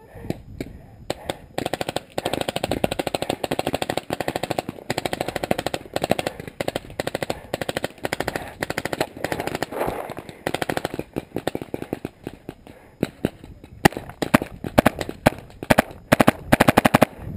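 Paintball markers firing in rapid strings of sharp pops, almost continuous for several seconds, then thinning out and coming back as separate short, louder volleys near the end.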